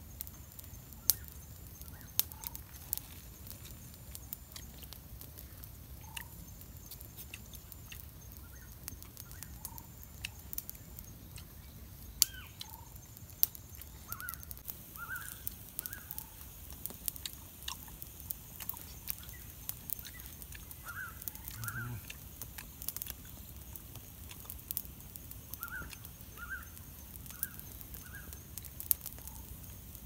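Wood campfire crackling with sharp pops scattered throughout, while small birds give short chirps, several in quick runs in the middle and again near the end.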